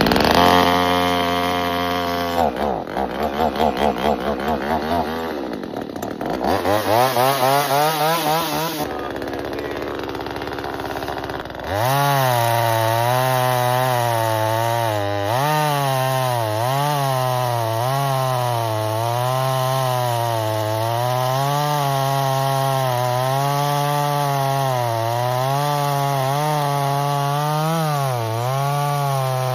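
Small Veor two-stroke gas chainsaw running just after a cold start with choke and primer bulb. It runs fast, then is revved up and down several times, and from about twelve seconds in it runs on steadily with its engine speed repeatedly dipping and recovering.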